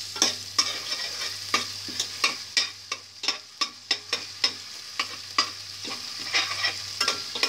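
Metal spoon stirring ginger paste frying in oil in a stainless steel pot: a steady sizzle, with the spoon scraping and clinking against the pot about three times a second. The paste is being fried on a low flame to cook out its rawness.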